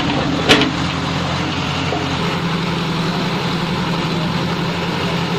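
An engine idling steadily with a low, even hum, and a single sharp click about half a second in.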